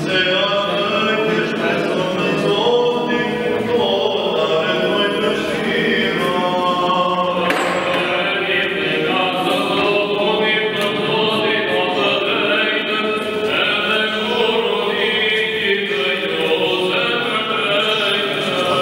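Choir singing Orthodox liturgical chant in sustained, unbroken lines.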